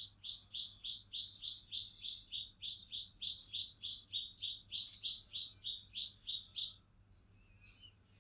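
A bird calling a rapid, even series of short, high chirps, about four a second, which stops after nearly seven seconds and is followed by a few scattered notes.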